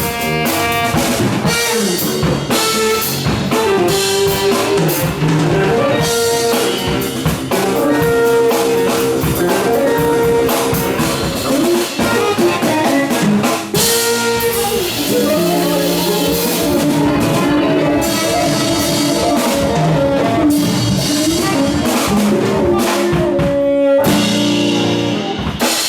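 A live band jamming an instrumental funk-jazz tune, with drum kit, guitar and a melodic lead line playing loudly throughout.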